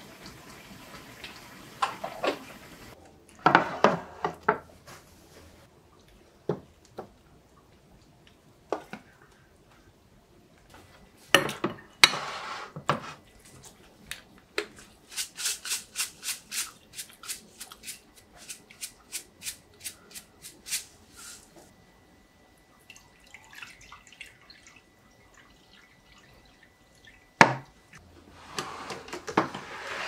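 Kitchen clatter of a spoon, pot and dishes being handled, then a quick even run of light shakes, about three a second, as sesame seeds are shaken from a shaker over the food. A single sharp knock comes near the end.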